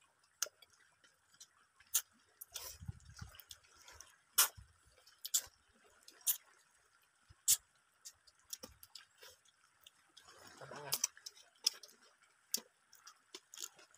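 Close-up sounds of people eating by hand: scattered sharp mouth clicks and smacks of chewing, about one every second or so at irregular intervals. A short low rumble comes about three seconds in and a brief low murmur about eleven seconds in.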